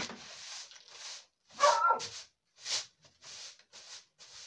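Short grass broom swept in quick strokes across the floor: a run of brushing swishes about two a second. About one and a half seconds in, a short high cry rises above them.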